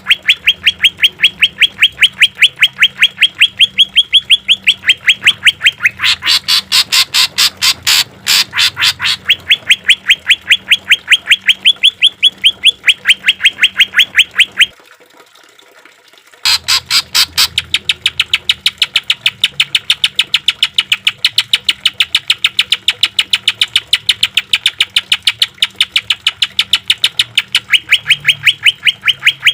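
Greater green leafbird (cucak ijo) singing a long run of sharp, rapidly repeated notes, about four to five a second. These are the rapid-fire 'tembakan' phrases prized in song training. There is a break of about a second and a half midway.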